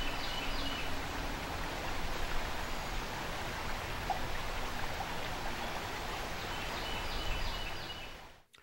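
Creek water running over a shallow riffle, a steady rush that fades away just before the end.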